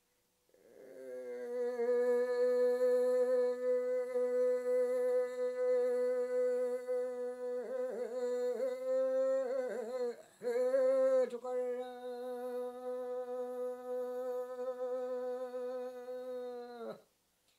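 Solo unaccompanied voice singing a Yami (Tao) fishing-trip song in single-line recitative style. A long held note is broken by a few seconds of wavering, ornamented pitch in the middle, then held again until it stops shortly before the end.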